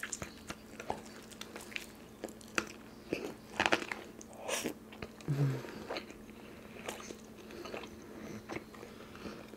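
Close-miked chewing of crispy fried chicken: irregular crunches and crackly clicks of the breading between the teeth, with a brief hum about five seconds in.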